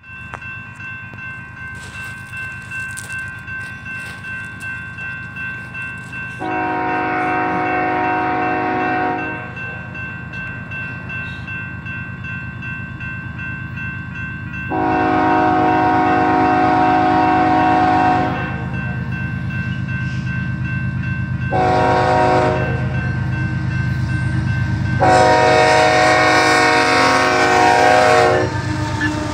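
Grade-crossing warning bell ringing steadily while an approaching BNSF diesel freight locomotive sounds its multi-chime air horn in the crossing pattern: long, long, short, long. The locomotive's engine rumble grows louder near the end as it reaches the crossing.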